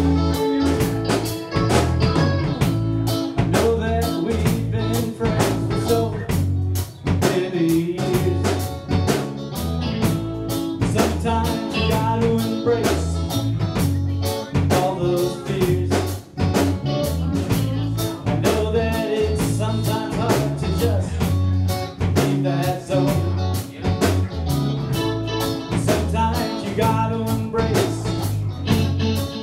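Live band playing a song: electric guitars, bass guitar and a drum kit with a steady beat, with some singing.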